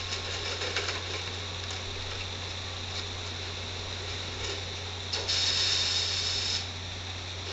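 Subway train standing in a station: a steady low hum and hiss, with a few faint clicks early on. A little after five seconds in there is a louder hiss lasting about a second and a half.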